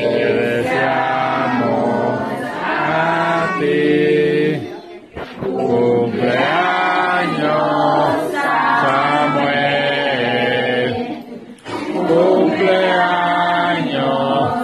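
A group of adults and children singing a birthday song together in long sung phrases, with short breaks about five seconds in and again near eleven and a half seconds.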